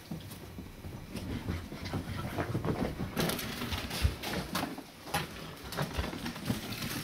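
English setter puppies' paws and claws pattering and clicking irregularly as they scamper around, with the taps growing louder and busier about three seconds in.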